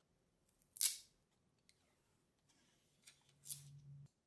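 Unboxing handling noise: two short, sharp rustles or scrapes of plastic wrap and packaging as the light bar's controller is taken from its box tray, the louder one about a second in and another near the end. A faint low hum sits under the second one.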